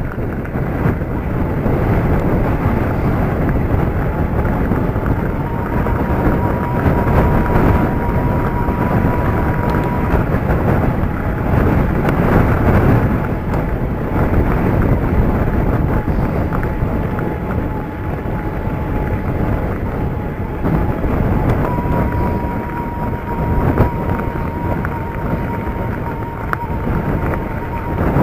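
Wind buffeting the camera microphone as a mountain bike rolls along a gravel track, its tyres crunching over the stones. A faint steady whine comes in twice.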